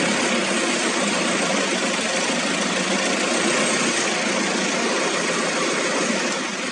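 Steady mechanical hum and hiss of running workshop machinery.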